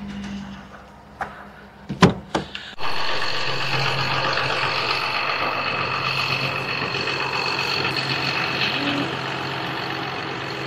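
A few sharp knocks and clicks, then about three seconds in a pickup truck suddenly starts running steadily, heard from inside the cab, a low hum with a few high whining tones over it.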